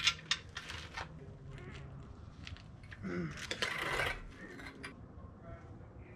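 Metal hand tools clinking as sockets are tried on an LS engine's main bearing cap bolts. There are a few sharp clicks in the first second and a longer metallic rattle about halfway through.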